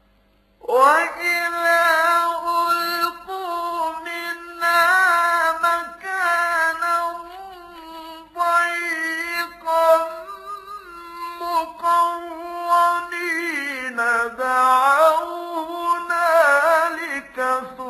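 A man's voice chanting Quranic verses in melodic recitation (tajweed), holding long ornamented notes that waver and glide in pitch, with short breaths between phrases. It comes in just under a second in, after a brief pause.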